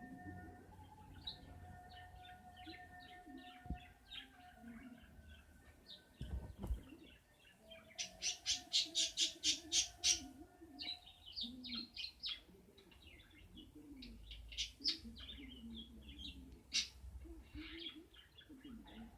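A small bird chirping and tweeting on and off, with a quick run of about ten louder chirps near the middle, over a faint steady hum.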